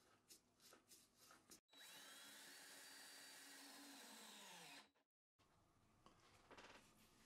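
DeWalt cordless drill running for about three seconds, rising in pitch as it spins up and falling as it winds down, driving a bolt into the oak box. A few light clicks of handling come before it.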